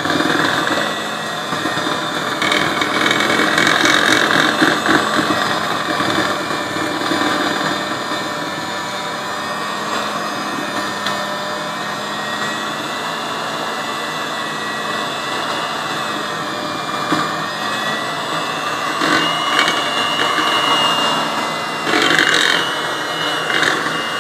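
Electric hand mixer running steadily as it beats cake batter, its motor whine wavering slightly in pitch as the beaters work through the batter, with a few brief knocks near the end.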